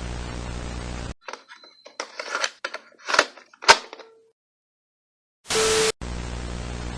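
Steady static hiss that cuts off about a second in. A run of crackles and sharp cracks follows, the two loudest near the middle. After a moment of silence comes a short loud blast of noise, and the steady static returns near the end.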